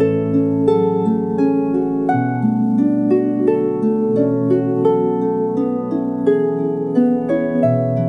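Lyre music: plucked string notes ringing and decaying, a few notes a second, over longer-held low notes.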